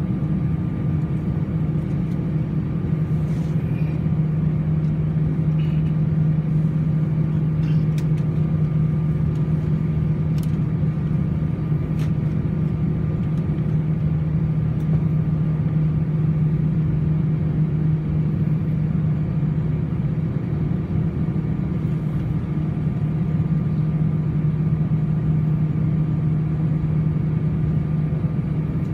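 Steady drone of an Airbus A319's CFM56 jet engines running at low power, heard inside the cabin beside the wing, with a strong low hum that holds one pitch throughout and no spool-up.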